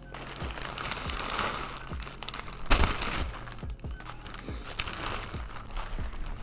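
Plastic poly mailer and a plastic-wrapped inner package crinkling and rustling as they are handled close to the microphone, with one loud crackle about two and a half seconds in.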